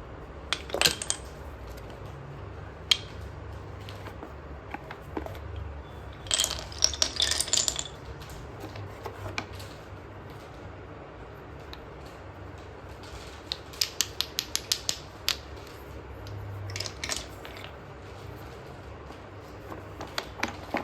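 Slate pencils crunching and clicking close to the microphone: scattered sharp cracks, a dense cluster of crunches about six seconds in, and a quick run of about eight clicks, some four a second, around fourteen seconds in.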